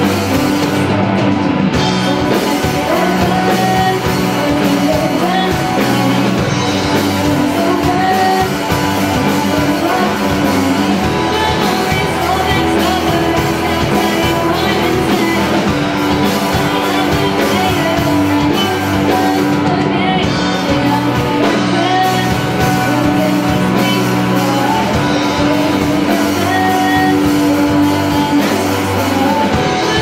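A rock band playing live: a girl singing lead over drum kit and electric guitars.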